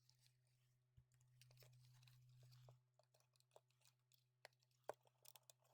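Near silence with faint handling noise: small clicks and taps of the plastic mic pack case being fitted back together, the sharpest click just under five seconds in. A low hum sits underneath and swells for a couple of seconds about a second in.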